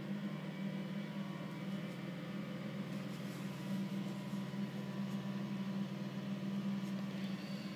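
Heavy diesel road-paving machinery, an asphalt paver being fed by a tipper lorry, running with a steady low drone.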